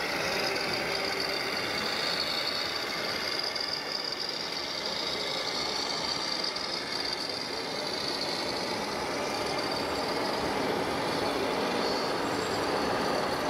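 Radio-controlled model truck running: a steady engine-like sound with a faint high whine that wavers slightly in pitch.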